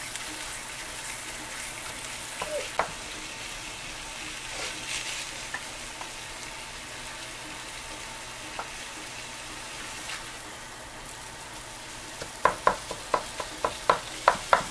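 Ground meat sizzling as it fries in a nonstick skillet, stirred and broken up with a plastic slotted spatula. Near the end comes a quick run of about nine sharp taps as the spatula chops the meat against the pan.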